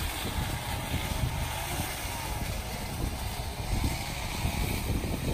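Strong sandstorm wind buffeting the microphone: a constant rumble with uneven gusts.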